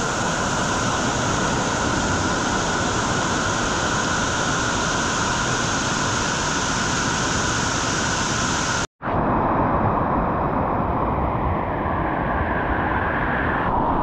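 Waterfall, a steady rush of falling water. It breaks off for a moment about nine seconds in and comes back duller, with less hiss.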